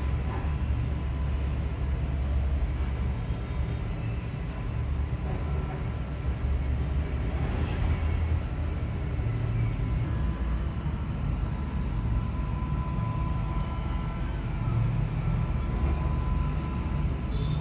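Steady low background rumble with a faint steady hum, and a few faint high chirps in the middle.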